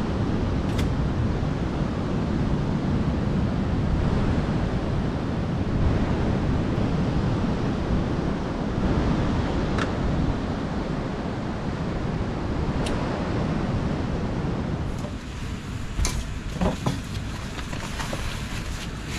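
Steady rushing noise of wind and surf on an open beach. About 15 seconds in it drops away and a few knocks and rustles follow, as a bag is handled on a ute's rear tray.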